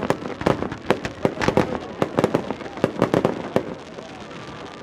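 Fireworks display: aerial shells bursting in a rapid, irregular run of bangs and crackles, which thins out to a quieter stretch near the end.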